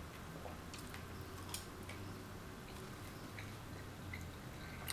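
Faint chewing and small wet mouth sounds of someone eating soft syrup-soaked waffles, with a few sharp little clicks scattered through and a low steady hum underneath.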